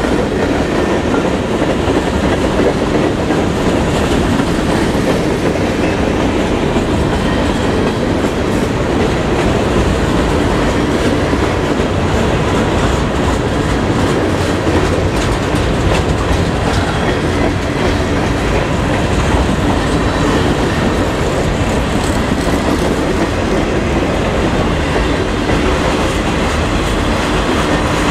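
Freight train of covered hoppers and boxcars rolling past: a loud, steady rumble of steel wheels on rail with a running clickety-clack from the wheels.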